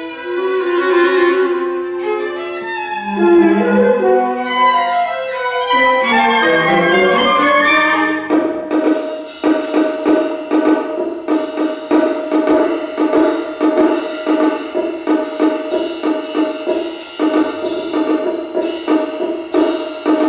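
Chamber ensemble of 25-string gayageum, winds, strings and percussion playing contemporary classical music. Sustained melodic lines shift in pitch at first, then about eight seconds in the texture turns into fast repeated strokes over a held note.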